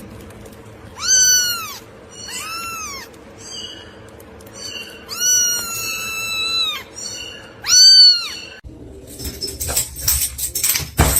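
A cat meowing four times in high, arching calls, the third drawn out much longer than the rest. Near the end come a couple of seconds of rustling and clicking noise.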